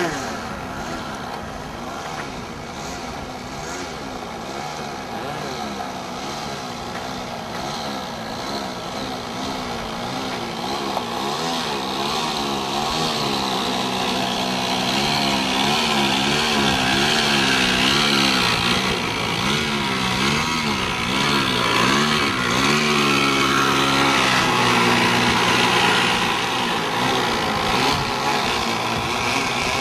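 Engine of a radio-controlled Skylark model airplane buzzing steadily, its pitch wavering up and down again and again as the plane passes back and forth low over the field. It grows louder through the second half as the plane comes in close.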